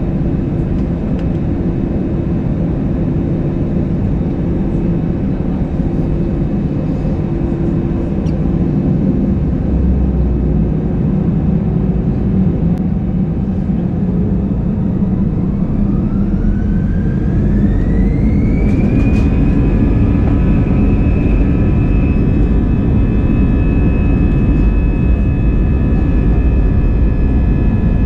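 Airbus A320-200 jet engines heard from inside the cabin, spooling up to takeoff thrust. A loud low rumble carries on throughout; about halfway through, an engine whine rises over a few seconds, then holds steady as the rumble grows a little louder.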